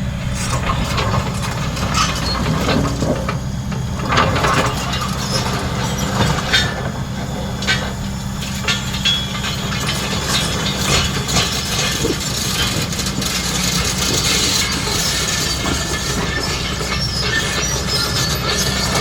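Kobelco SK excavator's diesel engine running steadily, with frequent irregular knocks and clatter on top.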